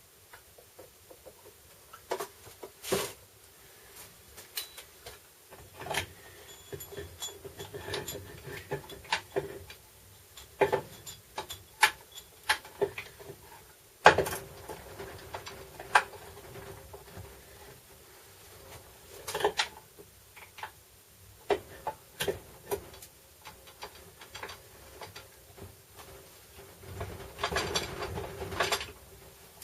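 Irregular clicks, knocks and clinks of hand tools and transfer case parts being handled, with a faint steady hum underneath; the loudest knock comes about halfway through, and a busy cluster of clatter comes near the end.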